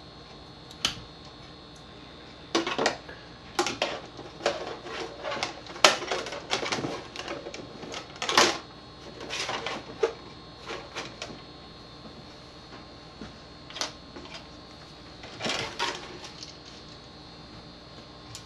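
Irregular clicks, taps and short rustles of a wire being handled and plastic tubs being moved about on a countertop.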